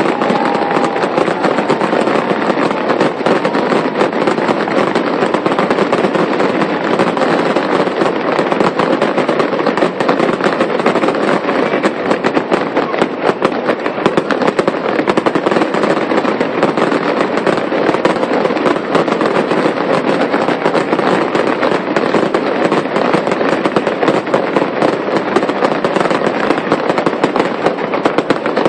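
Fireworks going off in a dense, unbroken barrage of crackling pops and bangs.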